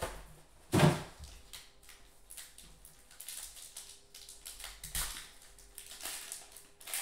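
Foil trading-card pack wrapper crinkling and being torn open by hand, in scattered crackles, with one louder rustle about a second in.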